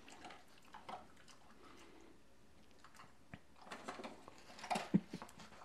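Near-silent room tone for about three seconds, then a scattering of faint clicks and taps over the last two seconds.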